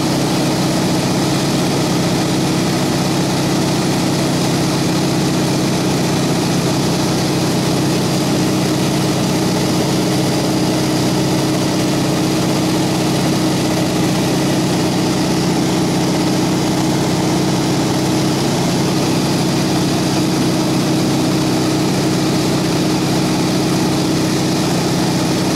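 De Havilland Beaver floatplane's engine and propeller droning steadily in flight, heard from inside the cabin, with an unchanging pitch and level.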